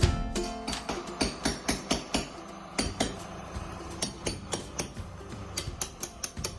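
Hammer blows during building work: a run of sharp, irregular knocks, about two to three a second.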